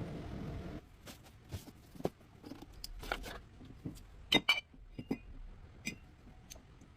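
A steady rumbling noise cuts off suddenly under a second in. Scattered clicks, knocks and a few ringing metallic clinks follow, as of hand tools and metal parts being handled during a front wheel bearing replacement.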